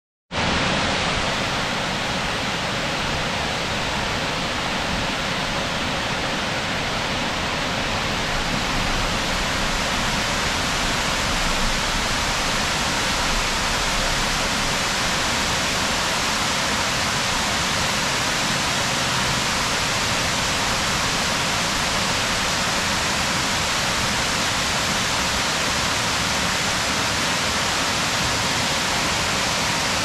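Brandywine Falls, a waterfall spilling over a rock ledge, giving a steady, even rush of falling water.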